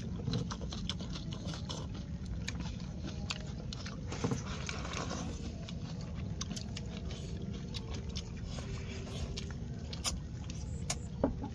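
Eating with chopsticks from a small ceramic bowl: scattered light clicks of chopsticks against the bowl and chewing, over a steady low background rumble.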